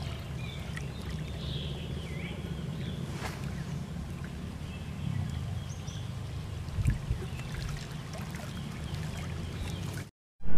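Steady low hum of a distant motor, with faint high chirps and ticks over it; the sound cuts out for a moment near the end.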